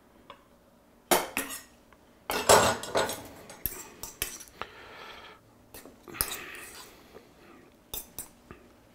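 A metal fork clinking and scraping against a stainless steel bowl while mixing chopped hard-boiled egg, ham and cornichons, in uneven bursts starting about a second in, with a few sharp clinks near the end.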